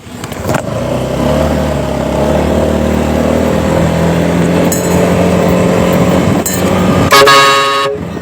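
A vehicle runs steadily, then about seven seconds in a loud vehicle horn blasts for about a second, several tones at once, and cuts off.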